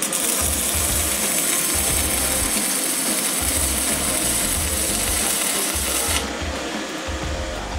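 Stick (MMA) welding arc from a 160 A inverter welder, a steady crackling sizzle as the coated electrode melts into a steel plate. The arc cuts off about six seconds in.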